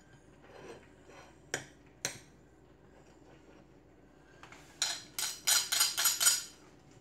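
Kitchen clicks and clinks: two knife taps on a cutting board as hard-boiled eggs are cut up, then, after a pause, a quick run of about eight sharp clicks and clinks near the end.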